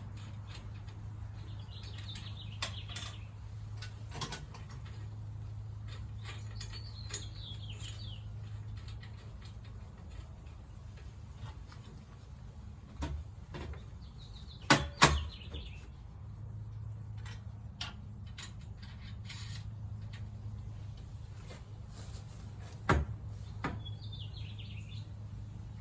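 Birds chirping in short calls four times over a steady low hum, with scattered sharp knocks and clicks. The loudest is a quick double knock about fifteen seconds in, and another comes near twenty-three seconds.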